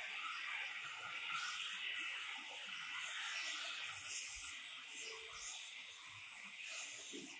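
Hand-held angle grinder with a polishing pad running against the edge of a terrazzo stair step, a steady, even grinding noise.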